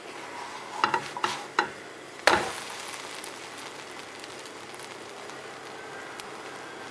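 Dosa sizzling on a non-stick pan as it is flipped with a spatula. A few light taps come about a second in and a louder knock just after two seconds, then steady sizzling.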